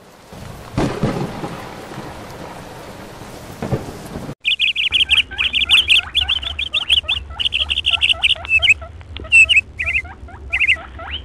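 A thunder-and-rain sound effect, rain hiss with two rumbles, that cuts off suddenly about four seconds in; then birds chirping loudly in rapid, repeated calls.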